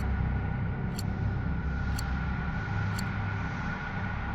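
Countdown-timer sound effect ticking once a second, four ticks, over a steady low rushing noise bed.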